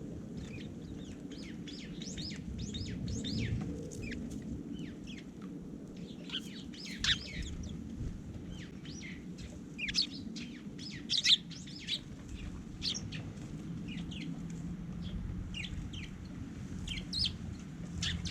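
Small garden birds chirping over and over in many short, quick calls, a few sharper and louder ones in the middle, over a steady low rumble.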